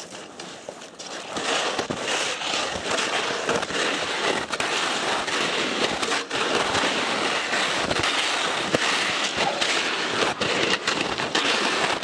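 Skis crunching and swishing through snow, with twigs and branches crackling and scraping as they are pushed through: a dense, steady crackle of small clicks that grows louder about a second and a half in.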